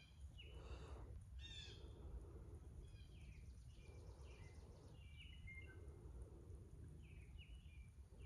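Birds chirping faintly: short calls, one every second or so, some in quick pairs, over a low steady rumble of outdoor background noise.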